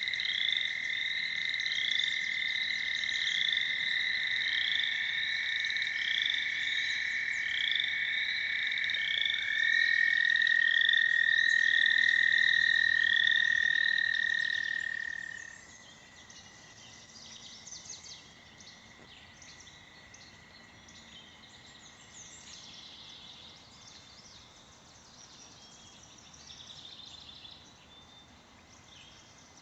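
A chorus of American toads: two or three long, steady high trills overlap at slightly different pitches, with a higher call repeating about once a second above them. The loud trills stop about halfway through, leaving a faint distant trill and scattered bird calls.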